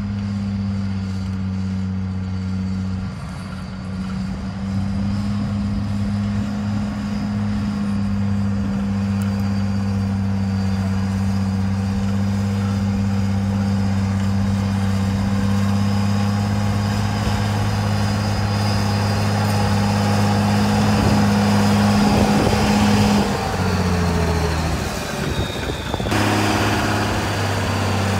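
Huber-Warco motor grader's engine running steadily under load while it grades a dirt street. Its pitch drops for a few seconds about 23 seconds in and rises again near the end.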